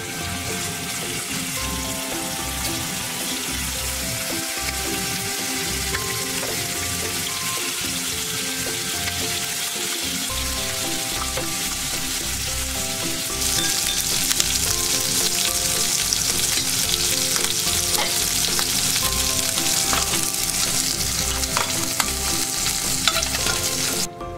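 Chicken pieces frying skin-side down in oil in a nonstick frying pan: a steady sizzle that grows louder about halfway through. Faint background music plays underneath.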